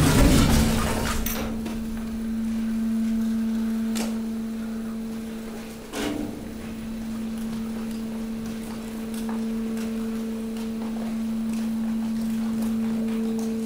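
Hydraulic waste compactor running with a steady low hum from its pump while mixed waste is swept out of the hopper. There is a loud clatter right at the start and sharp knocks about four and six seconds in.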